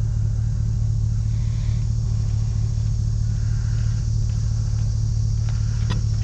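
A motor vehicle engine idling steadily, a constant low hum and rumble.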